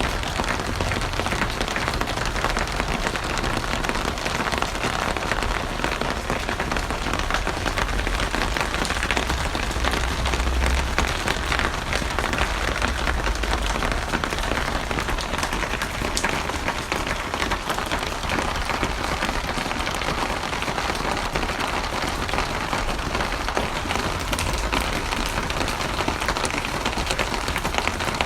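Steady rain falling, a dense even hiss of drops with a low rumble underneath that swells and fades.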